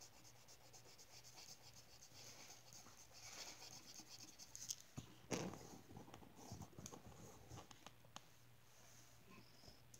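Felt-tip marker scratching and rubbing on paper in quick, short strokes as a coloring page is filled in, faint throughout. A louder bump and rustle comes about five seconds in.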